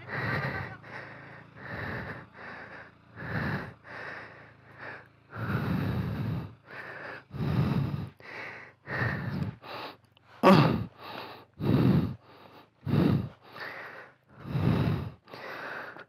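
A man panting heavily, short loud breaths in and out about one every second, out of breath from physical exertion.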